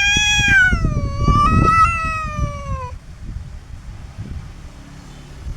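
Cat's long, drawn-out yowl, held for about three seconds with a wavering pitch that slides down and fades near the end. It is a defensive warning at another cat, which the owner takes for the cat guarding its kitten.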